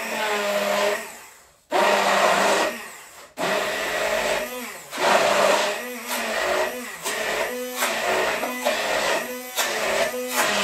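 Countertop blender blending a cacao and ground-hazelnut mousse mixture. It runs in two short bursts that each wind down, then runs on continuously from about three seconds in. Its pitch dips and recovers roughly once a second.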